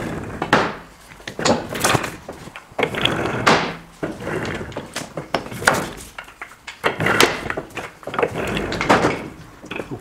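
Wooden toy cars rolling and knocking on a hard floor: a run of irregular wooden clacks and thunks, with short stretches of rolling rumble between them.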